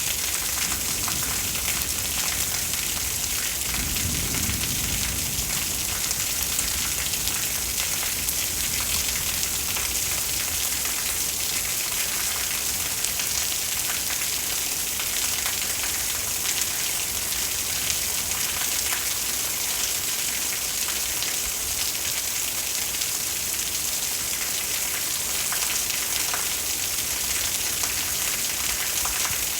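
Steady heavy rain falling during a thunderstorm, with a brief low rumble about four seconds in.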